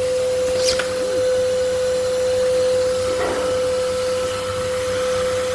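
Nilfisk Buddy II vacuum cleaner running steadily after being cleaned and reassembled, its motor giving a strong, even whine over the rush of air. A brief click comes about a second in.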